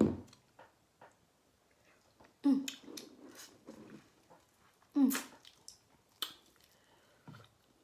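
Close-miked eating of rotisserie chicken: wet chewing and lip-smacking clicks, with two short murmurs from the eater a few seconds apart.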